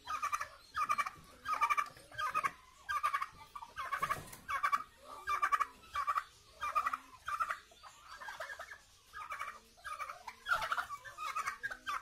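Domestic turkey toms gobbling over and over, short rattling calls coming about twice a second.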